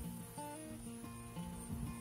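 Background music led by a plucked acoustic guitar, with short melodic notes changing over a steady low tone.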